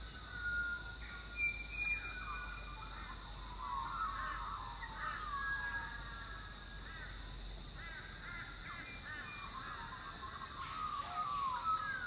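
Birds calling: a string of short, quick chirping and warbling calls that grow busier near the end.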